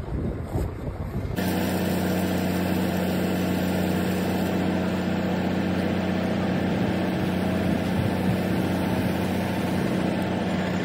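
Water-well drilling rig's engine running steadily with an even, unchanging hum. Before that, about the first second holds a rougher, uneven low rumble.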